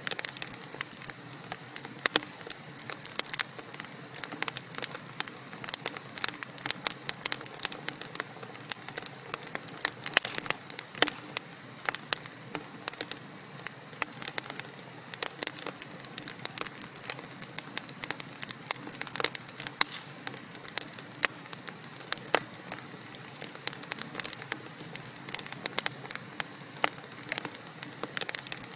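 Wood fire burning in a fireplace: a steady low hiss with frequent irregular sharp crackles and pops from the burning logs.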